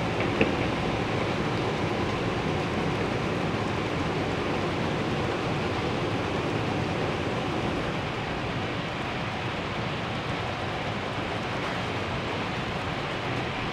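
Model freight train of coal gondolas and hoppers rolling along the track: a steady, even rumble of wheels on rail, easing off a little in the second half. A single sharp click about half a second in.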